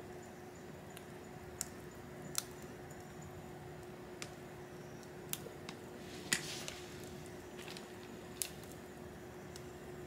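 Wood fire crackling: a steady low rush of burning with sharp pops at irregular intervals, about one every second, the loudest about six seconds in and followed by a brief hiss.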